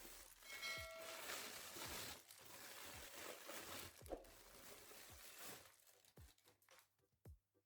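Faint crinkling and rustling of watch packaging being handled and unwrapped, with small clicks and a short squeak about half a second in; the handling dies away after about five seconds.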